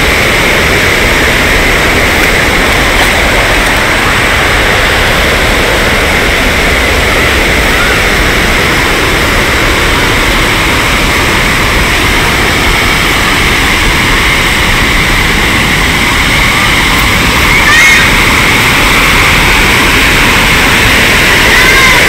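Water rushing steadily over a check dam's weir, a loud, even sound with no breaks.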